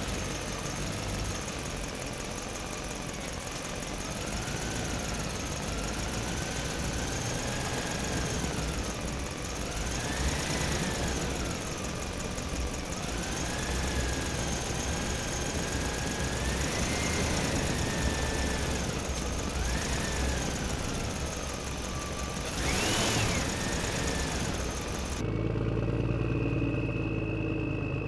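Electric motors of radio-controlled construction machines whining, the pitch rising and falling repeatedly as they speed up and slow down. A short loud rush of noise comes about 23 seconds in, and near the end the sound switches abruptly to a steadier, higher whine.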